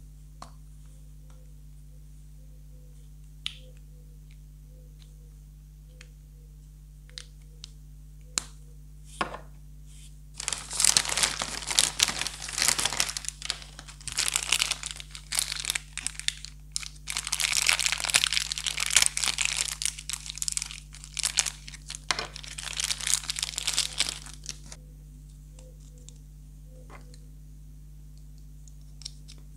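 Foil blind bag crinkling loudly in bursts for about fourteen seconds as a hand rummages inside it and pulls something out. Before and after, a few light clicks of small plastic toy pieces being handled.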